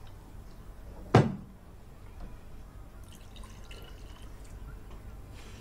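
A cup knocks down onto a table once, sharply, about a second in, then liquid is poured from a jug into a cup, a faint trickle to refill it.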